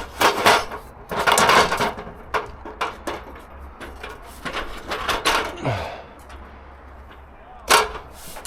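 Irregular knocks and clunks with short scraping, rustling bursts, and a brief low tone that falls in pitch about five and a half seconds in.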